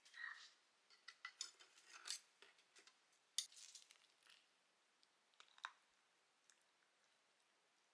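Chopsticks clicking and scraping in an earthenware pot of samgyetang as they pull at the whole chicken: a scatter of soft clicks and scrapes, with a sharper click about three and a half seconds in.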